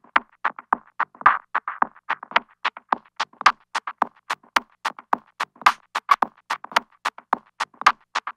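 Sparse electronic music built of short, dry clicks and knocks in a quick, uneven rhythm, with no bass line or held notes.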